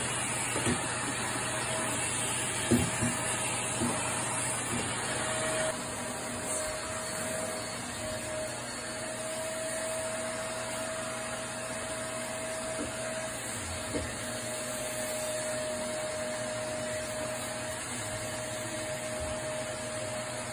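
Canister vacuum cleaner running steadily with a whine, as a small child pushes its floor nozzle about. A few light knocks come in the first few seconds, and one more about two-thirds of the way through.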